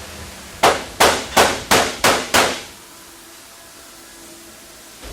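Six sharp knocks in quick succession, about three a second, then they stop.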